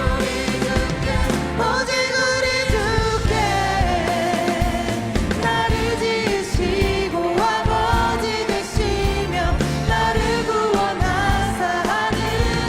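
Contemporary Christian worship music: a praise band playing with singers, steady and full throughout.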